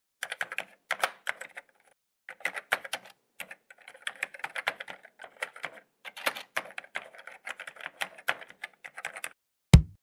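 Typing sound effect: bursts of rapid key clicks with short pauses. Near the end comes a single heavy thump, a stamp being pressed.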